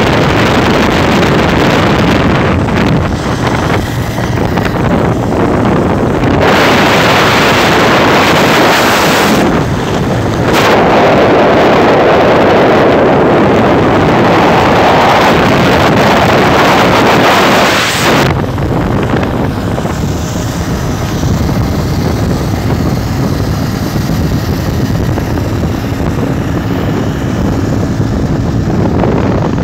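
Wind rushing over the microphone on a moving vehicle, with steady running noise underneath. The rush grows louder and harsher twice, once from about a quarter of the way in and again until a little past the middle.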